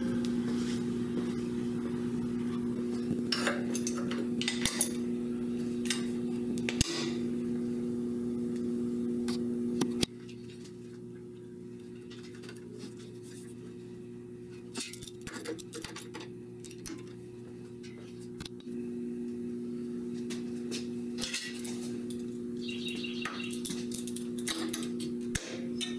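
Scattered light clinks and taps of steel parts and locking clamps being handled and positioned, over a steady low hum that drops away about ten seconds in and comes back a little over halfway through.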